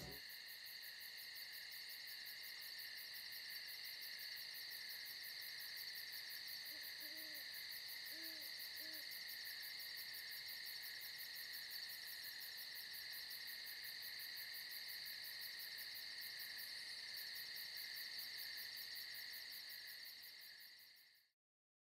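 A steady chorus of chirping insects, with a few soft, low hoots about seven to nine seconds in; the sound cuts off abruptly near the end.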